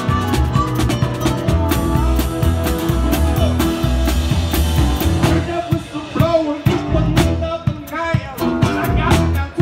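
Live band of two guitars and a drum kit playing a rock and roll number, with guitar lines bending in pitch over a steady beat. Sharp drum hits stand out in the second half.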